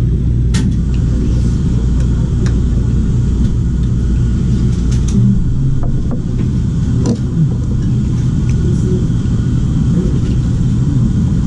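A spoon clinking a few times against a soup bowl over a steady low rumble.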